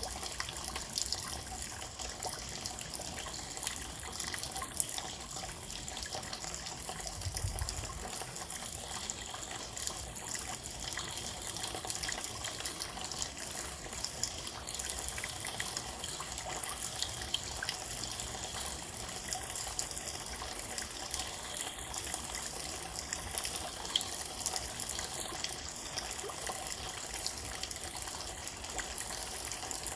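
Rain falling steadily, a continuous hiss of many small drops and drips, with a short low thump about seven seconds in.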